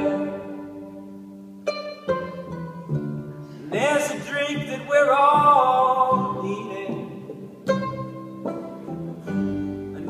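A small band playing an instrumental passage: plucked acoustic guitar and pizzicato notes over upright bass, with a sliding melody line swelling up about four seconds in and fading back.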